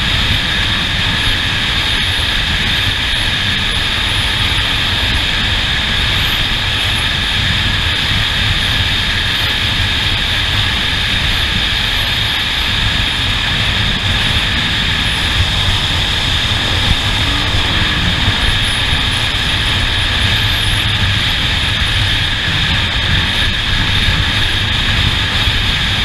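A steady, unbroken engine drone with a heavy rumble and wind noise, and a constant high whine over it, holding the same pitch and level throughout with no revving.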